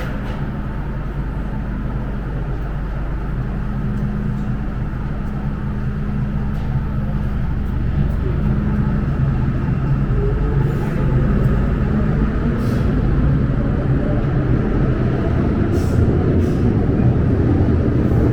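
MTR Island Line M-train electric multiple unit pulling out of the platform: a steady low rumble that grows louder, with a motor whine rising slowly in pitch from about ten seconds in as the train picks up speed.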